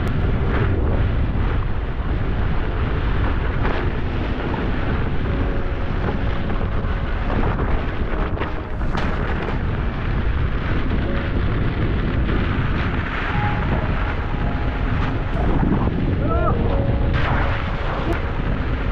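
Steady wind rumble buffeting the microphone of a camera moving along with electric unicycles on a dirt track, mixed with tyre noise on the wet gravel.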